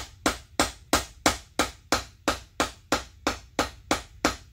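A small hammer striking a socket in a steady rhythm, about three blows a second, driving a new wheel bearing by its outer ring into a two-piece aluminum go-kart wheel.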